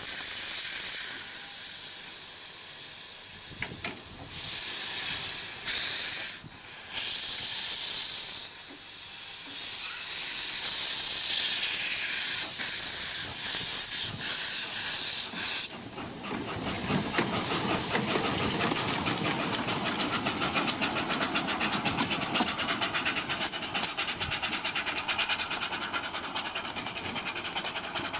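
Small steam tank locomotive venting steam: a high hiss that comes in bursts, starting and stopping, then from about halfway becomes a steady hiss with a fast pulsing beat underneath.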